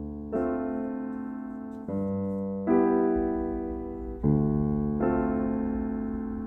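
Background piano music: slow, soft chords, a new one struck every second or two and left to ring and fade.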